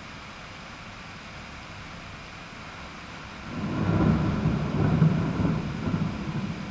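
A roll of thunder rumbles in about three and a half seconds in, swelling twice, then slowly dying away over a steady background hiss.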